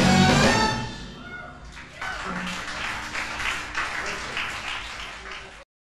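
A live ensemble's final chord, with trumpet, dies away over about a second. About two seconds in, the audience breaks into applause with some shouts, which cuts off abruptly near the end.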